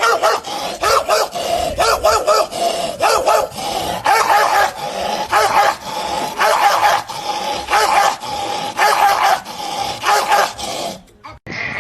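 Dog-like barking and yelping: a fast run of short, pitched barks, several a second, that stops shortly before the end.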